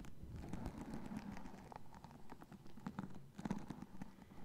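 Fingertips flicking across the pin bristles of a paddle hairbrush held close to the microphone: a dense, rapid patter of small clicks, louder at times.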